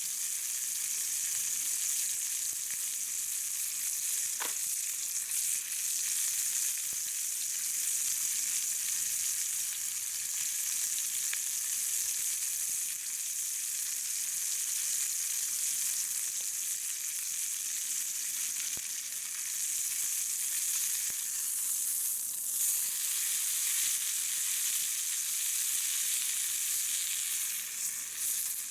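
Food frying in a pan over a campfire: a steady sizzle with a few faint pops.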